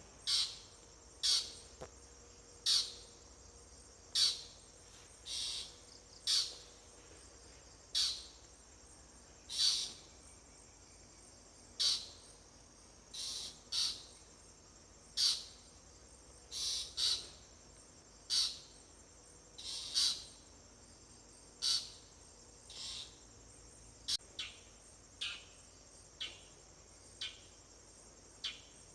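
A bird repeating a short call note about once a second, some notes paired, over a steady high insect drone.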